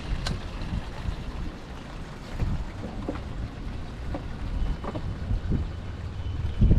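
Wind buffeting the microphone in a low, uneven rumble on an open boat, with a few faint short splashes or knocks.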